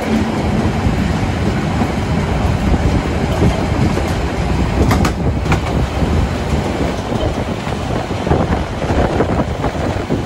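A train running on rails: a steady, loud rolling rumble, with two sharp clicks about five seconds in.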